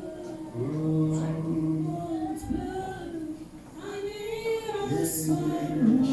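Several voices singing a slow song together, with long held notes at two pitches at once.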